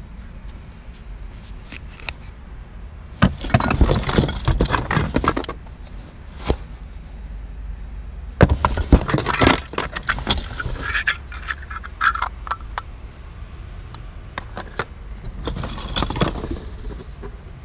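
Hands rummaging through a cardboard box of small trinkets and jewelry boxes: objects clattering and scraping against each other and the cardboard in three spells, over a steady low rumble.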